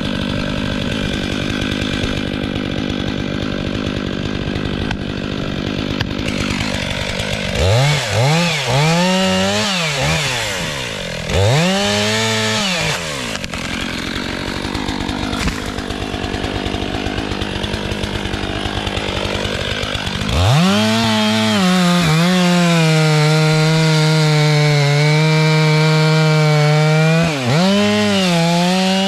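STIHL MS 500i fuel-injected two-stroke chainsaw idling, then revved up and let back down several times. It is then held at high revs for about six seconds, with another quick rev near the end.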